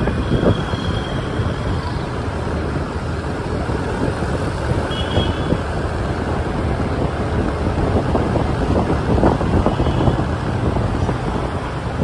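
Busy city street traffic heard from among motorbikes on the move: a steady mix of scooter engines and tyres on the road, with wind rumbling on the microphone.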